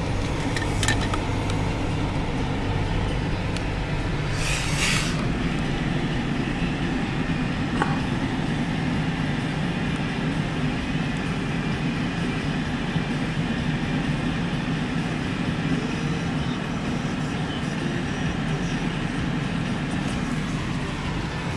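Steady road and engine noise from inside a slowly moving car, a low rumble with tyre hiss. A short hiss comes about four and a half seconds in.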